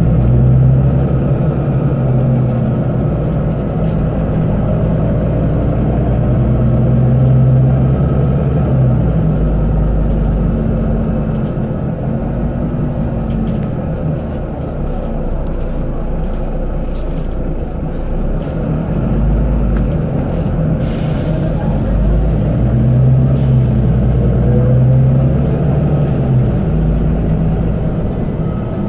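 Volvo B9TL double-decker bus's six-cylinder diesel engine running under way, heard from the upper deck, its note rising and falling several times as the bus accelerates and eases off, with light clicks over the top.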